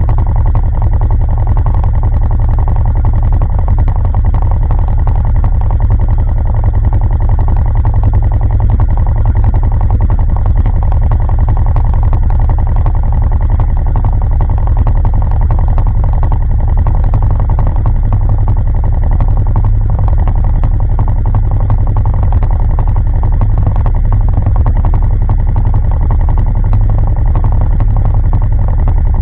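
ATV engine idling steadily, close to the microphone: a constant low rumble with no change in pace.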